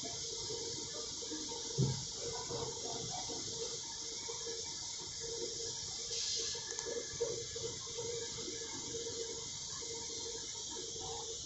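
Steady spraying hiss that swells briefly about six seconds in, with a single low thump about two seconds in.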